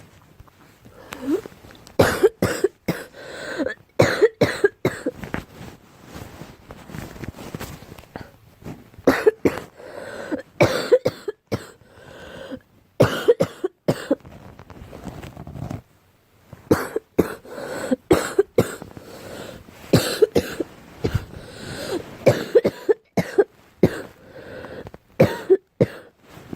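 A girl coughing over and over in bouts of several sharp coughs each, with short pauses between bouts.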